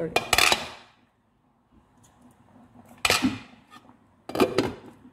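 Cookware clattering, most likely the glass pot lid being handled against the pot: three sharp knocks, one at the start, one about three seconds in and one just after four seconds, each ringing briefly.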